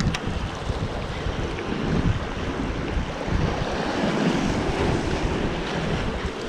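Waves washing and breaking over the rocks of a stone jetty, mixed with wind buffeting the microphone in a gusting low rumble.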